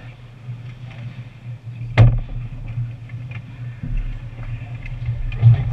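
Ice hockey play close to the goal: scattered skate and stick clicks over a steady low hum, with one sharp crack about two seconds in. The knocks grow busier near the end as players crowd the net.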